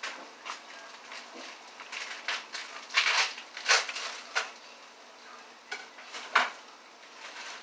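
A plastic pasta bag crinkling as it is cut open with a kitchen knife: a series of short crinkles and scraping clicks, the loudest about three seconds in. Food sizzles faintly in a pan underneath.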